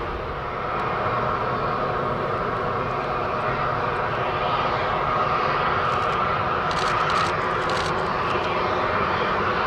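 Airbus A320-214 jet engines running, a steady loud jet noise with a whining band through it.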